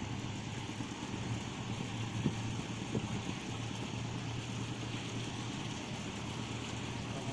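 A wooden fishing boat's engine running with a steady low hum over a background hiss, and a faint knock or two a little over two seconds in.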